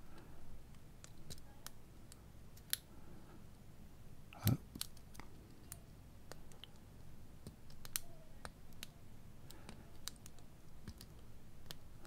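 Faint, scattered metallic clicks and ticks of a hook pick working the pin stack of a Master Lock 318DLH padlock under a tension wrench, with one louder knock about four and a half seconds in.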